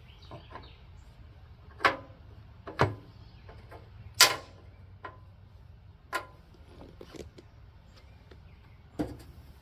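Metal seat-mounting bolts and washers on a lawn tractor's rear fender clinking and knocking as they are picked up, moved and set down. Half a dozen sharp, irregular clacks about a second apart, the loudest about four seconds in.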